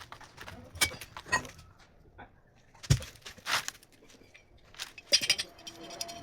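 Metal parts of a hydraulic jack clinking and knocking as they are handled during repair: scattered sharp clicks, a heavy knock about three seconds in, and a brief jangling metallic rattle about five seconds in.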